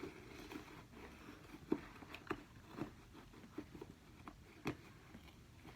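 Faint, scattered soft taps and rustles of a tight sneaker being handled and worked onto a foot.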